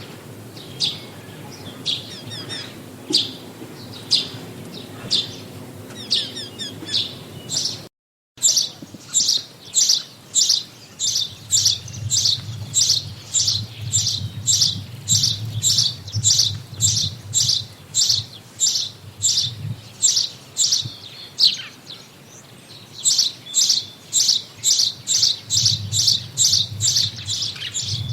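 Songbirds chirping. After a brief drop-out about eight seconds in, one bird repeats a sharp, high chirp in a steady run of about two to three a second. It pauses briefly near the end and then starts again.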